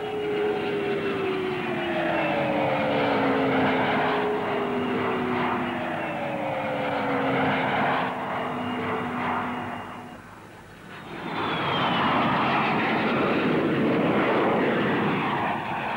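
Jet noise from a de Havilland Trident airliner's three rear-mounted Spey turbofans flying past, with whining tones that slide slowly down in pitch. The noise drops away briefly about ten seconds in, then returns with another high whine falling in pitch.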